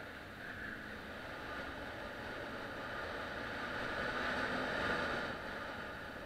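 Motorcycle riding at speed, with engine and wind noise on the microphone building up to about five seconds in, then easing off.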